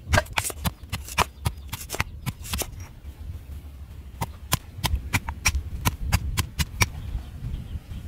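Pestle pounding garlic and ginger in a heavy stone mortar: quick, even knocks about three or four a second, each with a dull thud, with a short lull about three seconds in.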